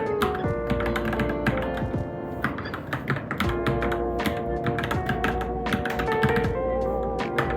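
Fast, irregular typing on a Varmilo Minilo mechanical keyboard, keys clacking in quick runs, over background music with sustained melodic tones.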